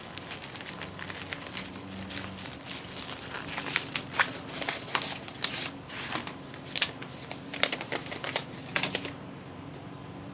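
Padded paper mailer being torn and rustled open, then a folded paper receipt pulled out and unfolded. It makes a run of sharp paper crackles and crinkles, thickest in the middle of the stretch.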